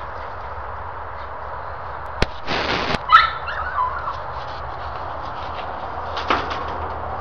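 A small dog gives a short, high yelp about three seconds in, just after a brief rushing noise, over a steady outdoor hiss. A couple of sharp clicks come before and after it.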